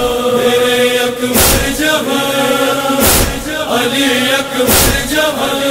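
Male chorus chanting a held refrain of an Urdu noha, a Muharram lament. A heavy thump keeps time about every 1.7 seconds: the matam beat of the noha.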